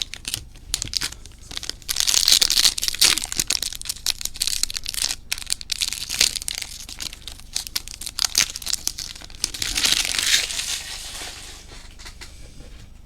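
Foil trading-card pack wrappers (2021 Bowman Chrome Mojo packs) being torn open and crinkled, with louder spells of crinkling about two seconds in and again around eight to ten seconds, dying down near the end.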